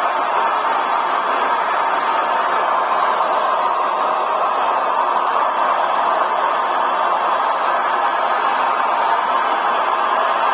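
Carpet washer's vacuum motor running steadily: a loud, even rushing noise with a thin high whine above it.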